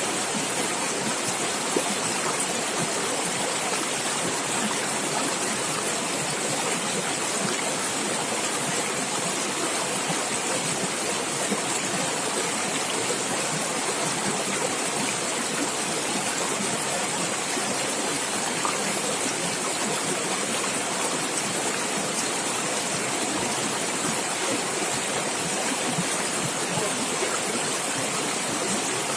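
Running water splashing and gurgling steadily over rocks in a stream, a constant rushing hiss with no pauses.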